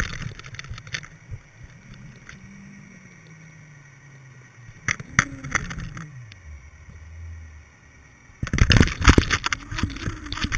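Muffled underwater sound through a camera's waterproof housing: a low hum slowly falling in pitch, with a few knocks. Then, about eight seconds in, loud jostling and rushing water noise against the housing.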